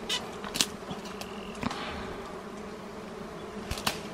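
A swarm of wild honeybees buzzing steadily around their exposed comb, with a few short sharp clicks over it.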